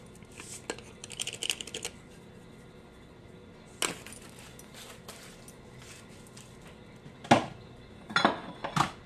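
Salt going onto a bowl of salad: a quick run of small dry clicks lasting about a second and a half, then a single click midway and three sharper knocks near the end, like containers and utensils set down on the worktop.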